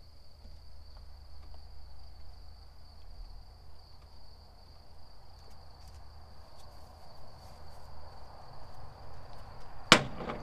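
Steady high-pitched chirring of night insects outdoors. Near the end, one sharp clack as a plate is set down on a glass tabletop.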